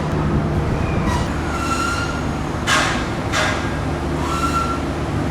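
Passenger train running on the rails: a steady low rumble, with two short bursts of hiss near the middle and a couple of faint, brief high tones.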